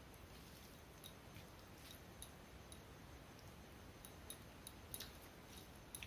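Faint eating sounds over near-silent room tone: scattered small clicks and smacks from rice being mixed by hand on a steel plate and chewed, the sharpest about five and six seconds in.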